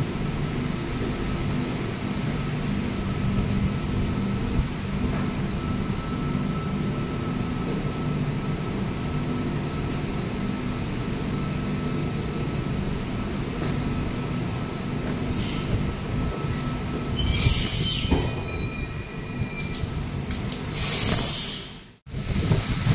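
V set double-decker electric train rolling along the platform with a steady low running hum. Near the end come two short, loud, high squeals falling in pitch, about four seconds apart, then the sound cuts off.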